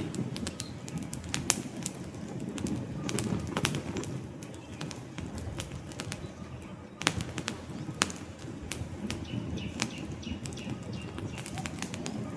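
Wood campfire burning: frequent sharp crackles and pops from the logs over a low, steady rumble of the flames.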